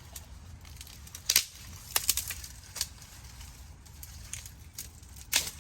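Rustling and crackling from plants and garden materials being handled, with a handful of sharp crackles about a second and a half, two, three and five seconds in, over a steady low rumble.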